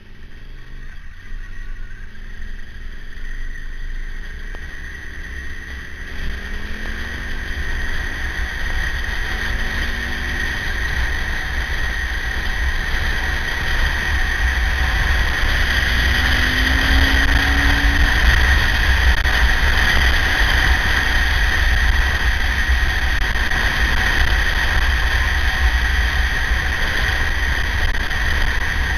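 KTM 950's LC8 V-twin motorcycle on the move, heard from the bike: a deep wind rumble with a steady high whine over it, and the engine note rising and falling faintly. The sound gets steadily louder over the first eighteen seconds or so, then holds.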